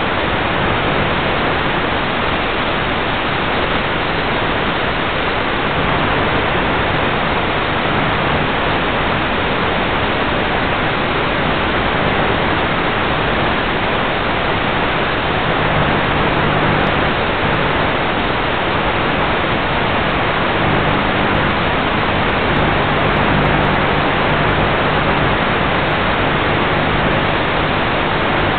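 Steady, even hiss of static from an analog FPV video link's audio channel. A faint low hum comes and goes in the second half.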